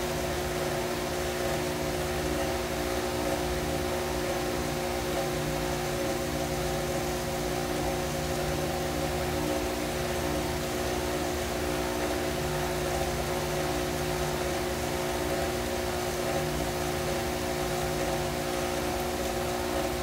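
Stand mixer motor running steadily on its lowest stir speed, an even hum, as it beats eggs into creamed butter and sugar for a pound cake batter.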